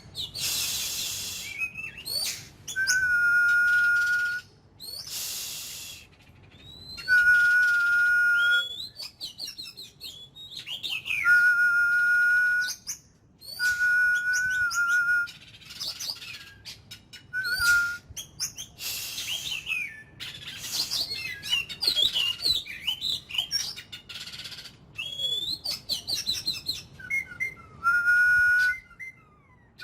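Oriental magpie-robin singing: phrases of quick chirps each ending in a long, level whistle held for about a second and a half, repeated every few seconds, with a run of varied rapid warbling notes in the latter part.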